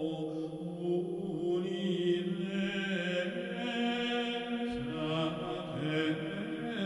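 Solemn choral chant on the soundtrack: several voices hold long, sustained notes that shift pitch slowly, like liturgical plainchant.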